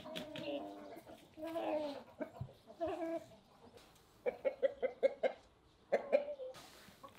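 Chickens clucking: a few short drawn-out calls, then a quick run of clucks about four seconds in, and another call near the end.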